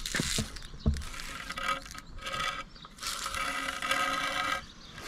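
A marker taped to a wooden board scraping and squeaking across the coated asphalt of a tennis court as the board is swung around a steel pin like a compass, with a couple of dull knocks about a second in.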